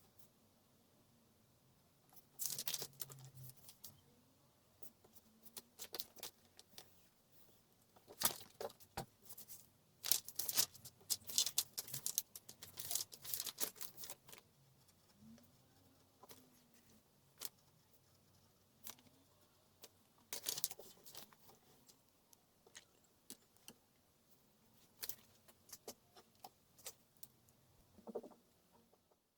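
Scattered small clicks, taps and rustles of objects being handled, coming in irregular clusters.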